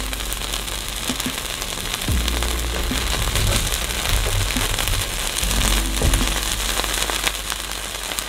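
A quesadilla sizzling and crackling steadily in a nonstick frying pan, as a spatula presses through the crisp tortilla to cut it.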